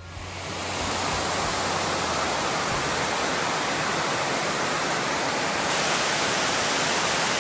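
Waterfall on a rocky river: a steady rush of white water pouring over a rock ledge, rising in over the first second and then holding even.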